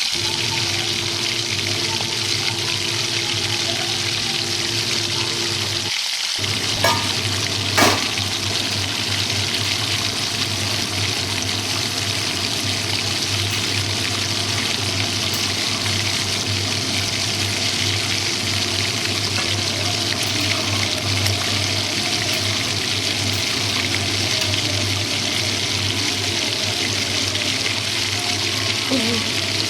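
Food frying in oil in a pan: a steady sizzle over a low hum, with two short clicks of a utensil about seven and eight seconds in.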